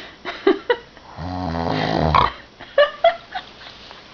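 Snoring in sleep: one long, rasping inhaled snore lasting about a second, starting just over a second in, with short snuffles and clicks before and after it.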